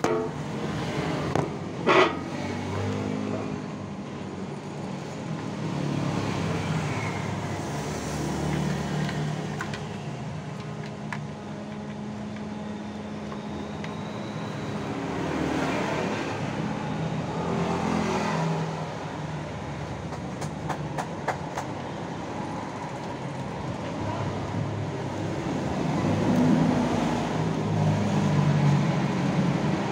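Motor vehicle traffic running and passing, its engine hum swelling and fading, with a sharp knock about two seconds in.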